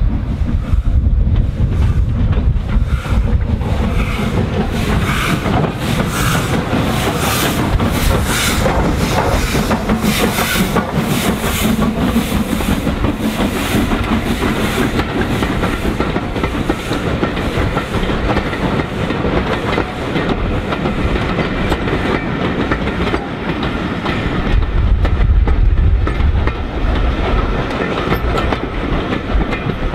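Steam locomotive pulling a passenger train, its exhaust beating in a steady rhythm, then coaches rolling past with the clickety-clack of wheels over rail joints. Wind buffets the microphone near the end.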